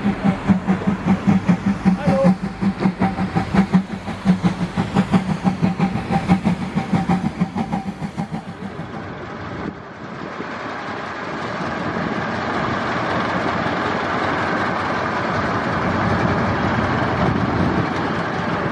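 A train in motion, with a rhythmic beat of about four pulses a second over a steady hum. From about ten seconds in, this gives way to a steady hiss of steam from the standing narrow-gauge steam locomotive BDZ 609.76, growing slightly louder.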